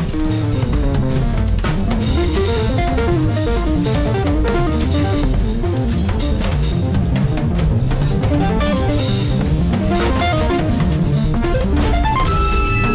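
Live electric-guitar improvisation in fast runs of notes over busy sampled drum-kit percussion; near the end a held chord of steady tones comes in.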